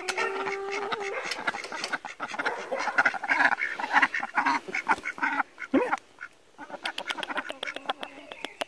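Ducks quacking and hens clucking in a mixed backyard flock, a stream of short calls with one longer held note in the first second.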